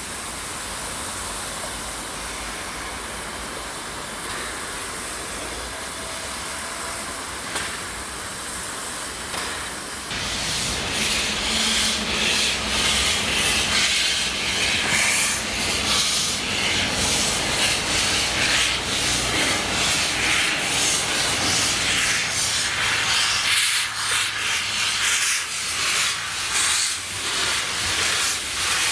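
A narrow-gauge steam locomotive hissing loudly with steam jetting from its cylinders as it moves slowly, the hiss pulsing in quick beats. This begins about a third of the way in; before that there is only a steadier, quieter rushing noise.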